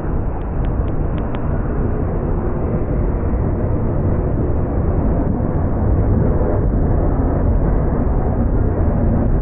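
Freight train rolling past close by, a steady low rumble of wheels on rail that grows louder about halfway through, mixed with heavy wind buffeting the microphone.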